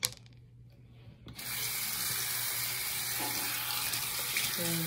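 Bathroom sink tap turned on about a second in, water then running steadily from the faucet into the basin. There is a short knock at the very start.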